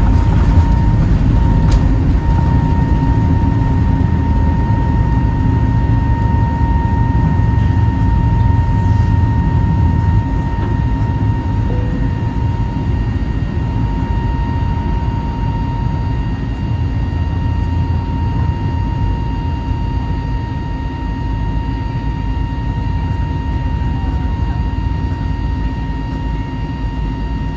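Airbus A321neo engines at takeoff thrust heard from the cabin beside the wing: a loud, steady rumble with a steady high fan whine. The heavy low rumble of the takeoff roll eases after liftoff, and the sound slowly grows quieter during the climb.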